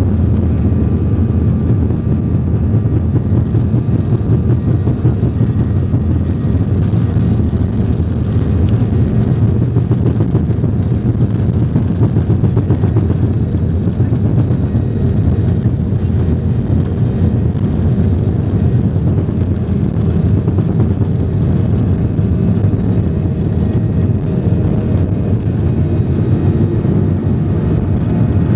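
Steady low rumble inside an airliner's cabin as it rolls at speed down the runway: jet engine noise and the wheels running on the tarmac, heard through the cabin wall.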